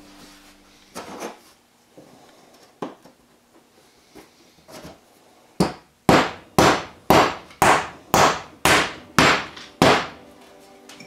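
A mallet knocking a laser-cut plywood piece down into its slots: a few light knocks, then about ten sharp strikes in a steady rhythm, about two a second, through the second half.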